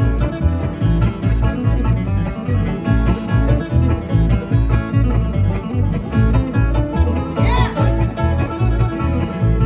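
Live acoustic bluegrass band playing an instrumental: banjo, acoustic guitars and fiddle over an upright bass keeping a steady beat.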